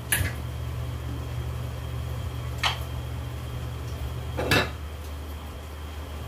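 Three short clinks of a metal ladle and kitchenware being set down on a tiled counter, the last the loudest, over a steady low hum.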